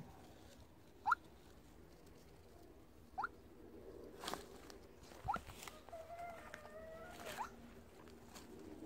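Metal detector giving short rising chirps about every two seconds as it is swept over the ground, with a longer held tone in the middle of the sweep series.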